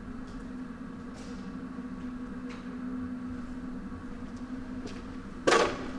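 Steady, weird-sounding hum of an overhead fan running, with faint footsteps and a loud knock near the end.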